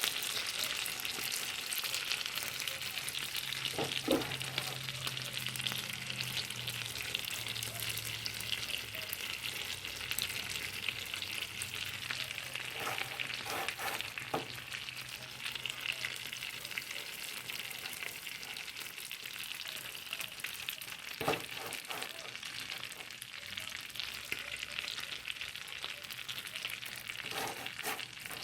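Kebabs sizzling steadily as they cook while sauce is brushed onto them, with a few light knocks of a utensil now and then.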